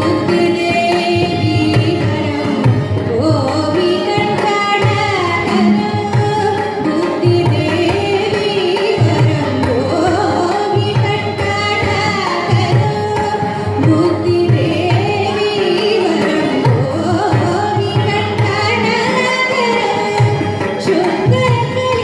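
A woman singing a Carnatic kriti in raga Mohanakalyani, with ornamented, gliding phrases, accompanied by violin and steady drum strokes.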